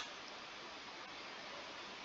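Faint steady hiss of room tone and microphone noise, with no keystrokes.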